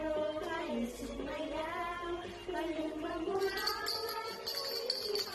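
A young girl's voice in a sing-song delivery, with drawn-out, gliding pitches.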